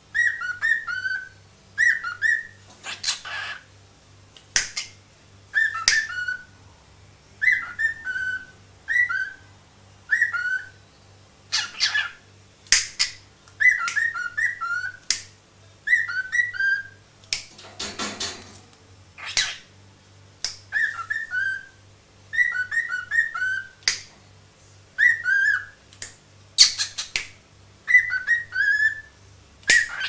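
Cockatiel whistling its song: short repeated phrases of quick, falling whistled notes every second or two, with sharp clicks between the phrases.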